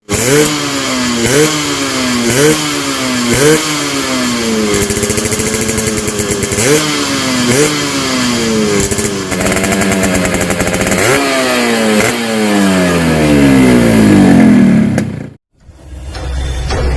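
Yamaha RX-King two-stroke single-cylinder motorcycle revved hard through a hollowed-out exhaust with a crisp, raspy note: quick throttle blips about once a second, then held revs and long falling rev-downs. The engine sound cuts off suddenly near the end and music starts.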